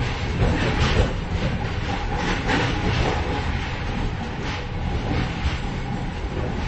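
Train in motion heard from the vestibule between carriages: a steady low rumble with irregular metallic clatter and rattling of the gangway and couplings.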